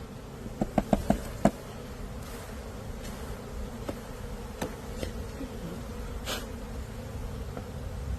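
Honeybee swarm buzzing steadily. About a second in comes a quick run of about five sharp knocks, with a few fainter taps and a short hiss later on.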